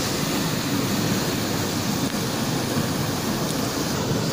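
Fast river water rushing and churning over its bed, a steady, even rushing noise.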